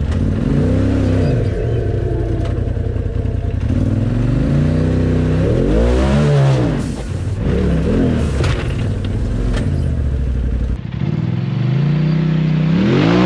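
Side-by-side UTV engine revving up and down repeatedly as it claws up a rock ledge, with scattered clattering knocks.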